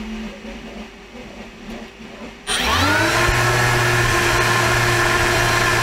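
Small brushless drone motor with a three-blade propeller spinning up about two and a half seconds in: a rising whine that levels off into a steady, loud whirring hum. The freshly fitted prop is out of balance and sets the thrust stand vibrating.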